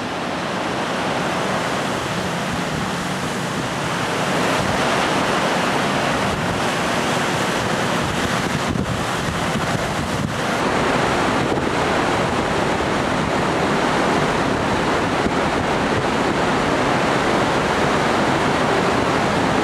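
Rough sea rushing and breaking alongside a container ship under way against heavy swell, with wind buffeting the microphone. The sound is a steady roar of water, a little louder after the first few seconds.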